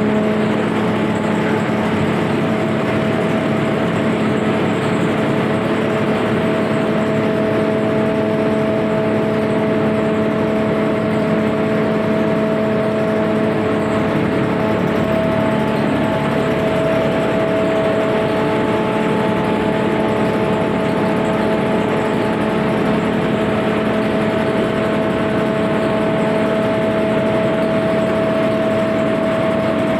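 Sawdust grinder machine running steadily at speed, a constant whine over a rushing noise.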